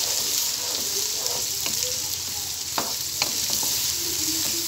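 Sliced onions sizzling steadily in hot oil in a kadai as they are stirred with a wooden spatula, with a few sharp clicks about halfway through. The onions are at the stage of being fried until brown.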